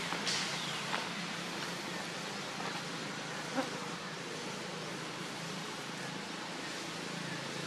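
Steady outdoor background hiss with a faint low hum, broken by a few soft clicks, the sharpest about three and a half seconds in.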